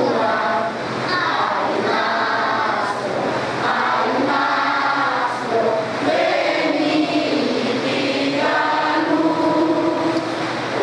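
A large group of voices singing the national anthem together in long, held phrases.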